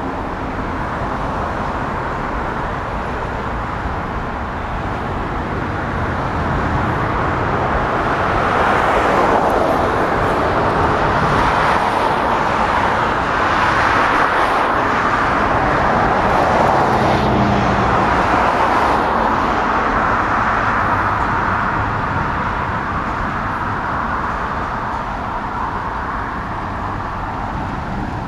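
Freight train's container cars rolling past on the rails: a steady rumbling rattle of wheels on track that swells louder in the middle and eases off toward the end.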